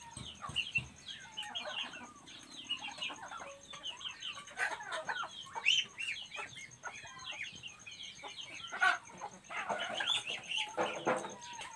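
Birds calling in a continuous stream of short, high, falling chirps, with clucking mixed in.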